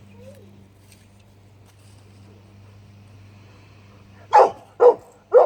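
A dog barks three times in quick succession near the end, each bark short and loud.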